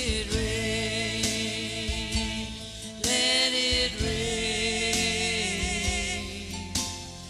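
Worship music: singing in long held notes with vibrato over a band's sustained chords and bass, with a few sharp accents.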